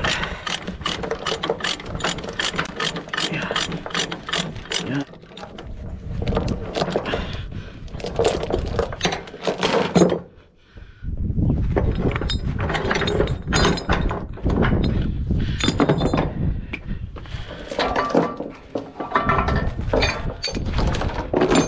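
Steel tie-down chains clinking and rattling as a chain binder is worked loose and the chains are pulled off the trailer deck: a dense run of rapid metallic clicks and knocks, with a short lull about ten seconds in.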